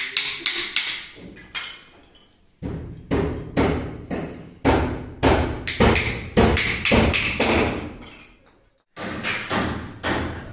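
Claw hammer driving nails into short timber blocks: a steady run of sharp strikes, about two to three a second, with a short break near the end before the blows start again.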